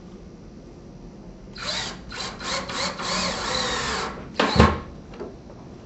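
Cordless drill driving a trim head screw through a wooden shutter frame and drywall into a wall stud, countersinking it. The motor runs for about two and a half seconds with a wavering pitch, then gives a short, louder burst.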